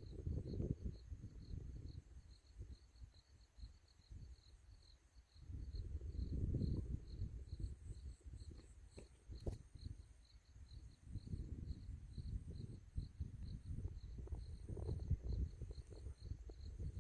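Wind gusting in low rumbles that die away for a few seconds and then pick up again, with crickets chirping in a steady, fast pulse.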